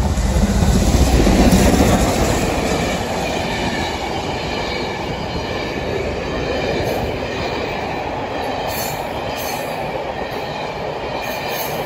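Steam locomotive 70000 Britannia, a BR Standard Class 7 Pacific, passing close by, loudest in the first two seconds. Its train of coaches then keeps rolling past with a steady rumble of wheels on the rails.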